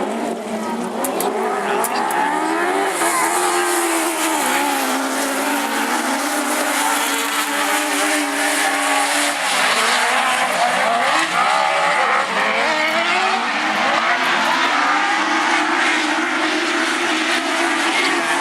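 Several autograss race cars' engines revving hard together, their pitches rising and falling as they accelerate and lift, over a steady hiss of tyres on the loose track surface.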